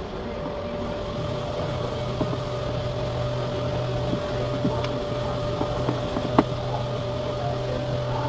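A steady mechanical hum holding two constant tones, the lower one coming in about two seconds in, with scattered light clicks and one sharp tick about six seconds in.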